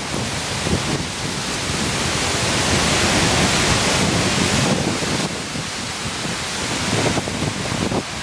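Steady rush of a waterfall mixed with wind buffeting the microphone, swelling louder for a couple of seconds in the middle.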